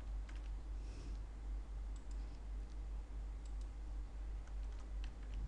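Scattered faint clicks of a computer mouse and keyboard as text is copied and pasted, over a steady low hum.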